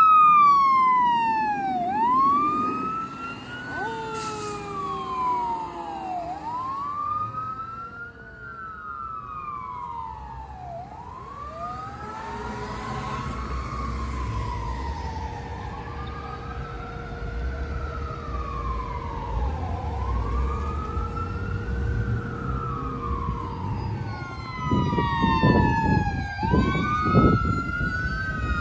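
Fire truck's electronic siren wailing, rising and falling about every four to five seconds, over the low rumble of the truck. A second, lower siren tone slides down for several seconds about four seconds in. Near the end come a few loud, low air horn blasts.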